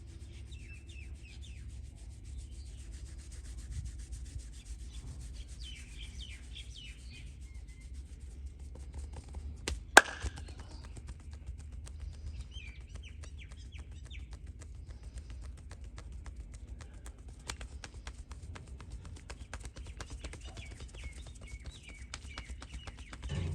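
Hands rubbing and working over skin during a massage, many small scratchy strokes over a low steady rumble, with birds chirping in the background. About ten seconds in, a single sharp, loud crack stands out above everything else.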